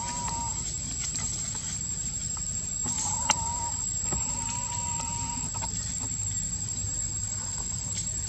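A chicken calling in drawn-out, held tones three times, the last and longest lasting about a second and a half, over a steady low rumble. A single sharp click about three seconds in.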